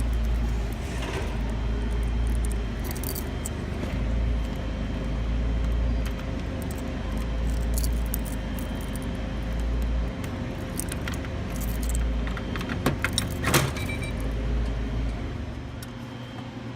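A bunch of keys jangling, with metal clicks and rattles as vending machines are unlocked and opened; there is a cluster of louder clicks about 13 seconds in. A low rumble comes and goes underneath.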